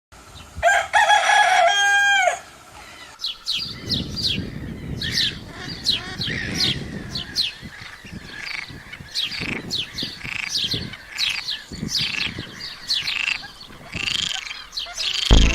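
A rooster crows once, loud and drawn out with a falling end, then small birds chirp repeatedly over a low steady background noise.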